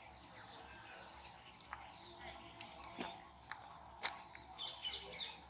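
Faint outdoor ambience with scattered high bird chirps and a few sharp clicks.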